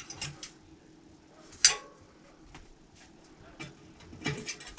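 A few sharp metal clicks and light taps from a spoke tensiometer being set on a bicycle wheel's spokes, the loudest about two seconds in with a brief ring.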